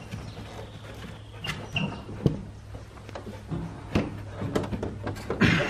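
A dog clambering about on a tractor seat and a plastic crate: scattered knocks and scrapes of its paws and claws, with a louder scuffle near the end.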